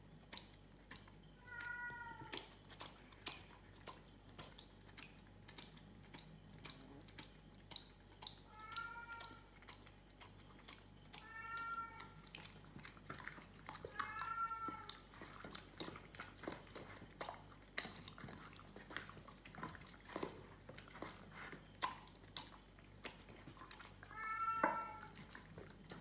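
A dog in a plastic cone eating from a metal bowl, with many small clicks and knocks of muzzle, cone and bowl. Five short, high whimpers come through it, the loudest near the end.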